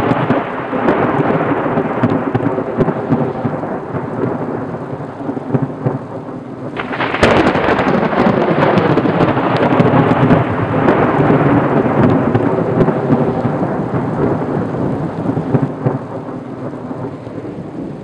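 Thunderstorm: thunder rumbling over steady rain, with a sharp thunderclap about seven seconds in that rolls on into a long rumble.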